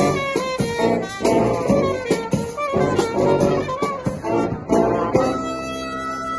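Live brass band playing a lively tune in quick short notes, then holding one long chord from about five seconds in.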